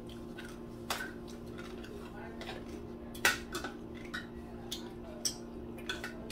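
Metal cutlery clinking and scraping against plates as people eat, in scattered sharp clicks with the loudest about three seconds in, over a steady low hum.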